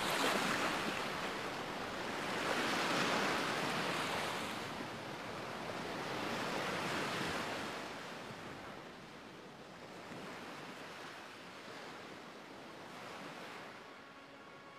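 Shallow surf washing in on a beach, swelling in surges every few seconds, then fading lower toward the end.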